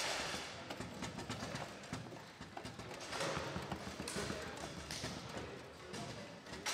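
Foosball table in play: the ball knocking against the players and the table walls, with the rods clacking, as a run of sharp irregular knocks.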